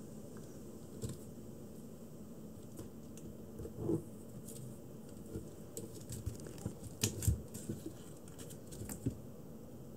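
Kitten's claws scratching and catching on a corrugated-cardboard scratching board, in scattered short scrapes and clicks that come thickest in the second half. A thump just before four seconds in.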